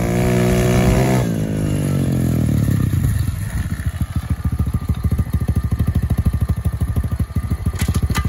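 Single-cylinder pit bike engine running at speed, its pitch falling from about a second in as the bike slows. From about three seconds in it idles with a steady beat of separate firing pulses.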